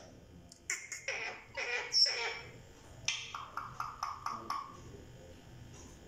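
Rose-ringed parakeet vocalizing: a speech-like babble about a second in, then around three seconds in a quick run of short repeated notes, about five a second.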